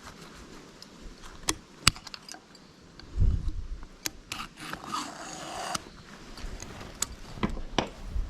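Metal tools and brake parts clinking and scraping during hands-on work on a tractor's rear brake assembly. There are scattered sharp knocks, a dull thump about three seconds in, and a short stretch of scraping in the middle.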